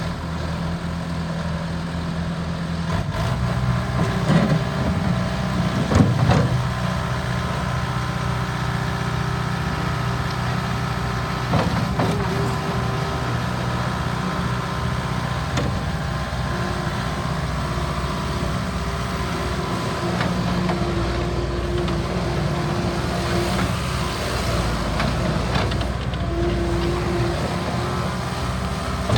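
Bobcat S650 skid steer loader's diesel engine running steadily, picking up in speed about three seconds in. A sharp knock comes about six seconds in and another near twelve, and short steady whines come and go.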